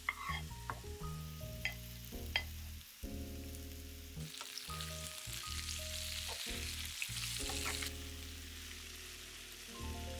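Food sizzling as it fries in oil in a pan, swelling louder in the middle, with a few sharp clicks of a utensil against the pan early on, under background music.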